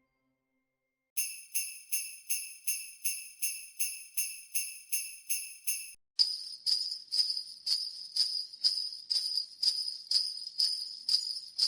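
Sleigh bells shaken in a steady rhythm, about two or three jingles a second, starting about a second in. About halfway through, a second set of bells with a different, brighter ring takes over at a slightly slower beat.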